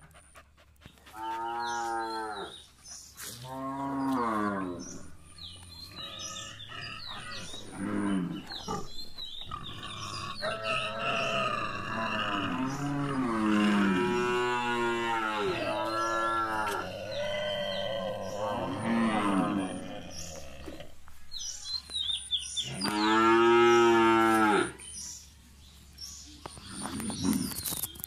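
Cattle mooing repeatedly: two single calls early, then several overlapping calls in the middle, and one long call, the loudest, near the end.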